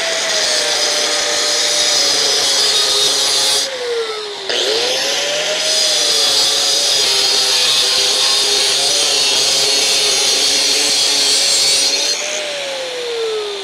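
DeWalt DWE402 4½-inch corded angle grinder with a Diablo diamond metal cutoff wheel cutting through 1/8-inch mild steel flat bar: a loud motor whine under load with a harsh, hissing cutting noise. The sound dips briefly about four seconds in, then the whine climbs back up. Near the end the cutting noise stops and the motor winds down.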